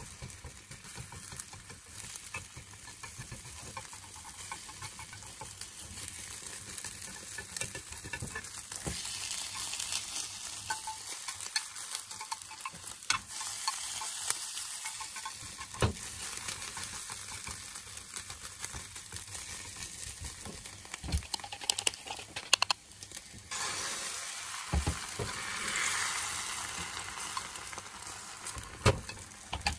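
Beaten egg sizzling in a hot rectangular tamagoyaki pan while wooden chopsticks stir and scrape it. Occasional sharp clicks of the chopsticks against the pan, the loudest a little after the middle and near the end.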